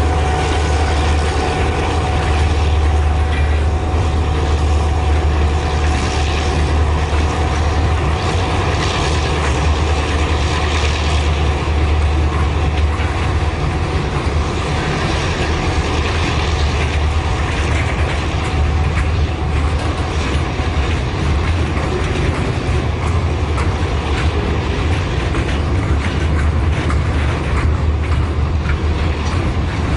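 Class 35-800 EMD diesel locomotives running with a steady deep engine drone as they haul a slow freight train, with the rattle and clank of the loaded wagons over the track and a thin steady whine above it.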